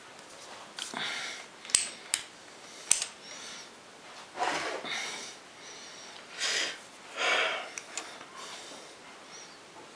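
Hand work at a stopped metal lathe: a few sharp metal clicks in the first three seconds, then three short rushing, breathy noises spaced a second or two apart.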